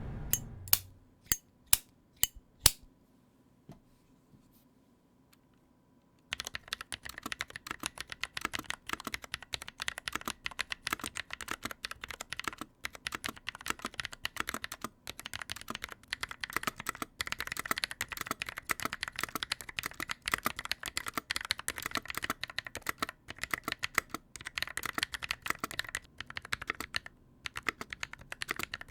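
Typing on a mechanical keyboard with lubed Holy Panda tactile switches in a stock NovelKeys NK65 Entry Edition. A few separate key strikes in the first three seconds, a pause, then steady fast typing from about six seconds in.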